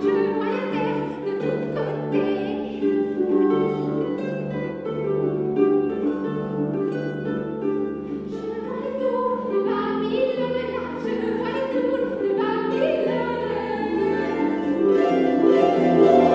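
Celtic harp playing a slow tune, plucked notes ringing over sustained bass notes.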